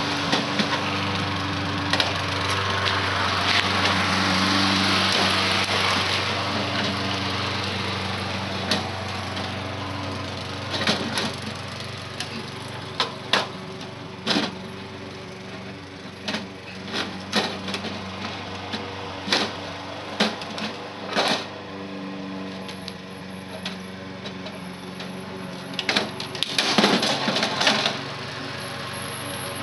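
Sharp metal knocks and clanks of a hand tool striking and prying at a heater's sheet-metal casing, coming in irregular runs and bunching into a quick flurry near the end. A steady engine-like drone runs underneath.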